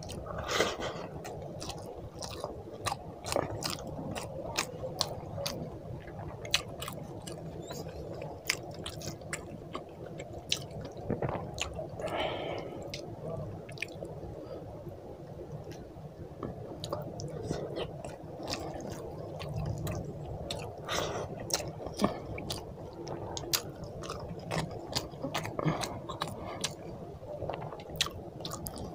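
Close-miked eating by hand: chewing and wet mouth clicks and smacks from mouthfuls of rice with fish and mutton curry. Fingers squelch as they mix the rice into the curry.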